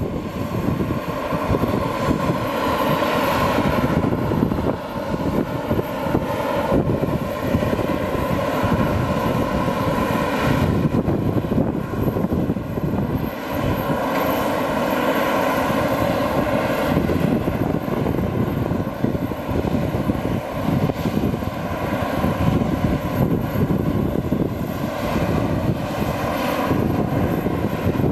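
Aircraft engine noise: a steady rumble with a whine held over it, with no sudden changes.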